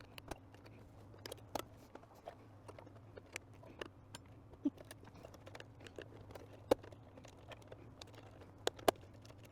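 Scattered small clicks and taps of a screwdriver and screws as a radio's chassis is taken apart, irregular and sharp, over a faint steady low hum.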